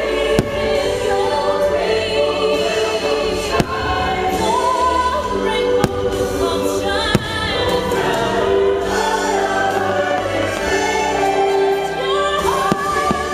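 Fireworks show soundtrack of orchestral music with a choir singing, broken by several sharp firework bangs.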